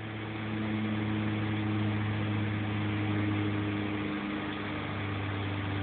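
A machine running steadily in the background: an unchanging low hum with a faint hiss.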